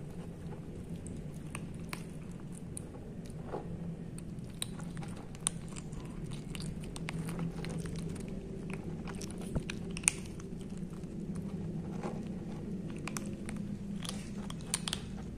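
Kittens crunching dry kibble from a plastic bowl: a quick, irregular run of small crunches and clicks over a steady low hum.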